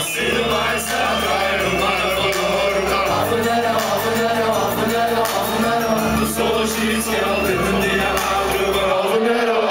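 Live hip-hop played loud through a large outdoor PA: a deep bass line in long held notes under several voices chanting, the bass dropping out near the end.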